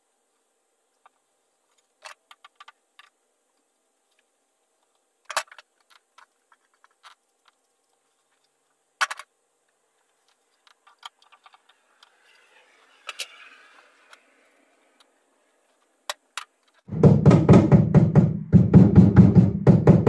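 Scattered light clicks and knocks from hands working headliner cloth and a small tool against a VW Beetle's bare metal body pillar. Near the end a loud, steady, rapidly pulsing sound starts, stops briefly, and starts again.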